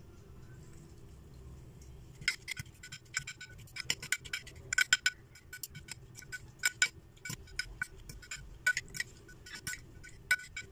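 Utensils clinking against a glass dish as a salad is tossed: quick, irregular ringing clinks that start about two seconds in.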